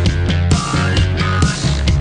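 Electronic rock song playing, with a heavy sustained bass and a steady drum beat.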